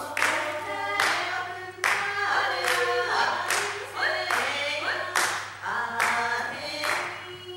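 A group of Ainu performers singing a traditional song together without instruments while clapping their hands in a steady beat, a clap a little under every second.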